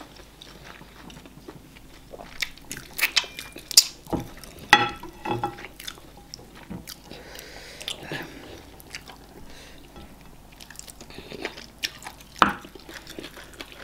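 Chewing and mouth smacks of people eating eba (garri fufu) and okra soup with meat by hand, heard as irregular sharp clicks. The loudest come a little before 4 s, near 5 s and about 12 s in.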